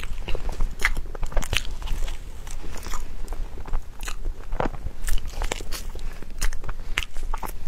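Close-miked eating sounds of a dessert being bitten and chewed, with irregular sharp, wet clicks and crunches from the mouth.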